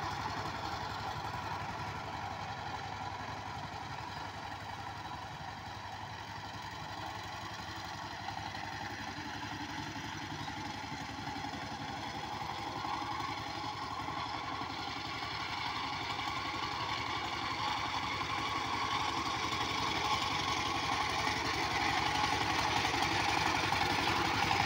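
Two-wheel power tiller's 20-horsepower engine running steadily with a rapid even beat as it tills the soil, growing gradually louder towards the end as the machine turns and comes back closer.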